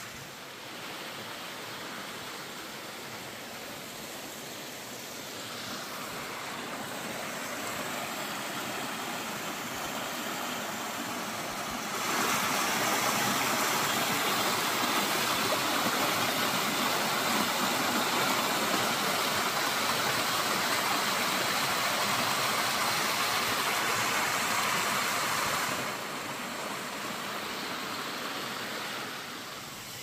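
Mountain valley stream: a steady rush of running water that becomes louder about twelve seconds in and drops back a few seconds before the end.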